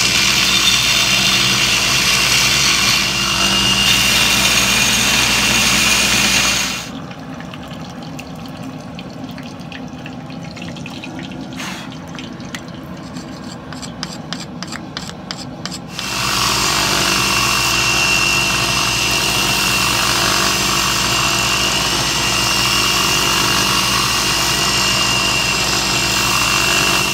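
Belt grinder running with a coarse 36-grit belt as steel is ground on it, a steady grinding noise with a high whine. About seven seconds in it gives way, for around nine seconds, to a much quieter stretch of fine crackling as the hot tomahawk head is quenched in oil, then the belt grinder runs again as the edge is sharpened.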